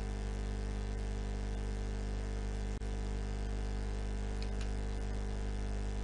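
Steady electrical mains hum, a constant low buzz with its overtones, with one brief click near the middle.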